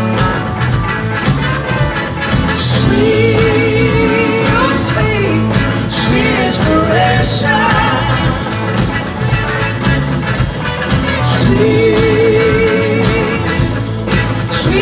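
A live rock band plays a soul song: electric guitars, bass, drums and a lead singer. Held, wavering notes come about three seconds in and again around twelve seconds.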